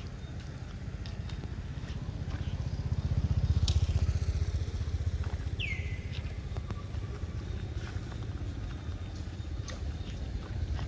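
Low engine rumble of a passing motor vehicle, swelling to its loudest about three to four seconds in and then easing off. A long-tailed macaque gives one short falling squeal about six seconds in.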